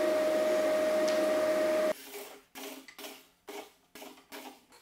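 Table saw running steadily with a strong, even whine, cut off abruptly about two seconds in; then a run of light wooden knocks, about two a second, as strips of wood are set down on a bench.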